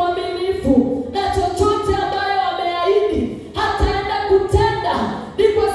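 Singing of a worship song, led by a woman's voice, with long held notes and a steady low beat underneath.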